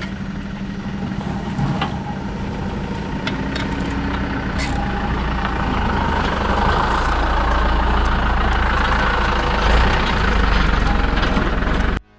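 A vehicle engine running steadily, growing gradually louder over the first half, then cutting off suddenly near the end.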